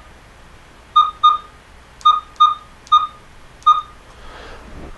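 Tasman V1000 variometer's built-in speaker giving six short beeps at one pitch, some in quick pairs, as its front-panel buttons are pressed to change a setting.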